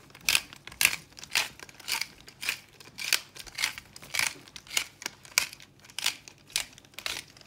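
Hand-twisted black pepper grinder cracking peppercorns, a dry rasping grind repeated about twice a second, some thirteen strokes in a row.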